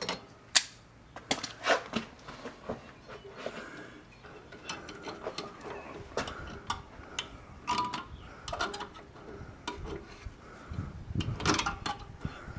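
Locking pliers and steel brake springs clicking and scraping against a rear drum brake's backing plate as the shoe's springs and hold-down retainer are worked off, in irregular sharp metallic clicks with a denser run of them near the end.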